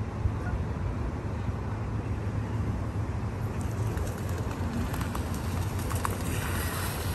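A steady low rumble, as of an engine or wind, with faint calls of birds that are begging for food.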